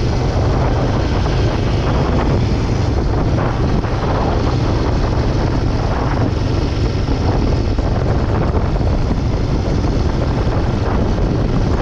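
HIMI 411's engine running steadily while driving over sand dunes, a low drone under constant wind and road noise.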